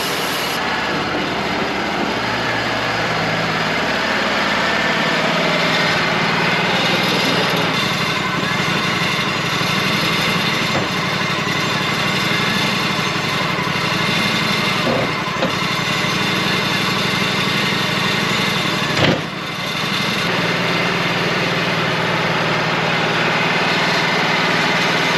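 Wood-Mizer LT35 hydraulic portable sawmill running steadily, with a sharp knock about nineteen seconds in.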